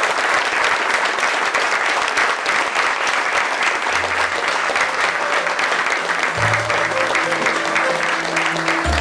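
Audience applauding steadily. About four seconds in, music with low held notes comes in under the applause.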